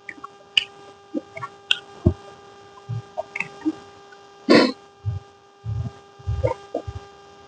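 Close-miked eating sounds: scattered small mouth clicks and lip smacks, a louder short noisy mouth sound about four and a half seconds in, then soft low chewing thumps, over a steady electrical hum.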